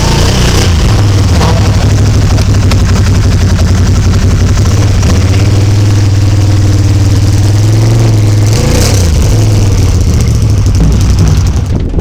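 A vehicle engine running loudly and steadily, its pitch rising and falling a few times in the middle.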